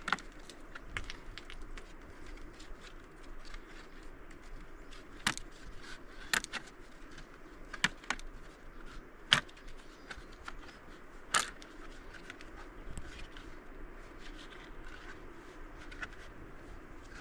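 Metal and plastic clicks and rattles of a folding stick clip being collapsed and packed by hand, with a handful of sharper snaps among lighter handling noise.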